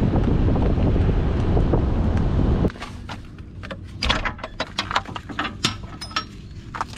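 Wind buffeting the microphone of a car on the move, which cuts off abruptly about 2.7 s in. After it comes a run of sharp clicks, clinks and knocks from a boat trailer's transom tie-down strap, its hook and ratchet being handled.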